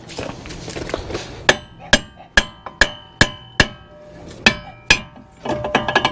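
Sharp, ringing metal-on-metal blows on the front wheel hub assembly of a Ford F350: six strikes about twice a second, a short pause, then two more, knocking a hub piece loose. Lighter metal clinking follows near the end.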